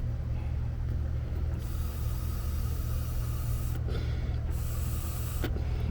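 A 2005 Honda Civic's four-cylinder engine idling steadily with a low hum, while a person blows out cigar smoke over the engine in two long, breathy exhalations, about a second and a half in and again near the end. The smoke is being used to find the vacuum leak behind a P1129 code.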